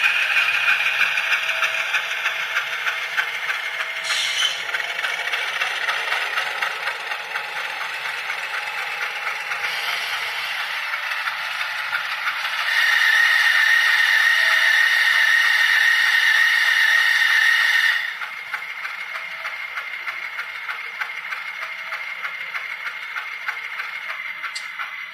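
Model diesel locomotive (Rivarossi U25C) running on track with a steady clattering rattle from its wheels and mechanism. About halfway through, its DCC sound decoder sounds a steady horn for about five seconds, which then cuts off.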